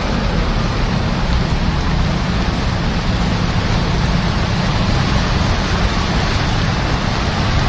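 Heavy rain pouring down steadily, a dense even hiss with a heavy low rumble underneath.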